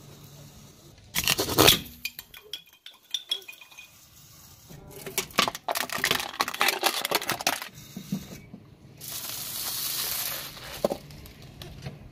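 A car tyre rolls over and crushes a series of objects. Plastic capsule eggs crack about a second in, aluminium drink cans crunch and clink through the middle, and a roll of aluminium foil crinkles under the tyre near the end.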